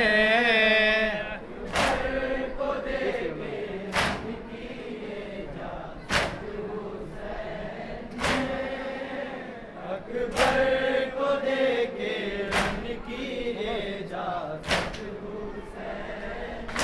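A group of men chanting a nauha refrain together in long held notes, with sharp unison chest-beating (matam) slaps landing about every two seconds.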